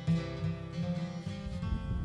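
Background music played on acoustic guitar, a run of plucked notes.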